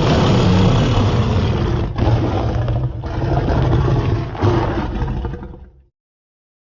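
Godzilla roar sound effect: a loud, harsh, rasping roar lasting about six seconds, broken by brief dips about two and three seconds in, fading out near the end.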